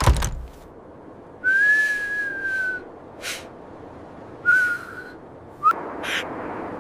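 A sharp thump, then a breathy whistle: one held note of about a second and a half, a short second whistle a couple of seconds later, and a brief rising whistle with a hiss near the end.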